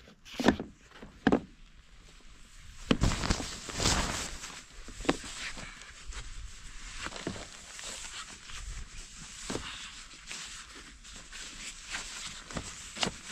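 Someone putting on and lacing shoes on a wooden deck: scattered knocks of the shoes against the boards, with rustling of tent fabric and clothing throughout.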